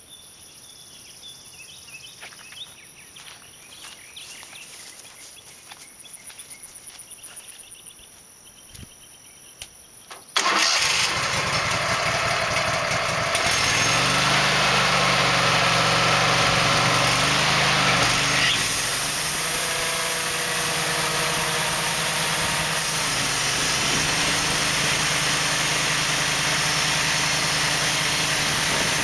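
Wood-Mizer sawmill engine starting suddenly about ten seconds in after a quiet stretch, then running steadily, a little louder for a few seconds before settling to an even run.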